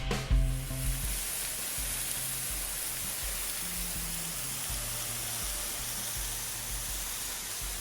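Steady rush of a rain-swollen waterfall, with soft background music playing low held notes underneath.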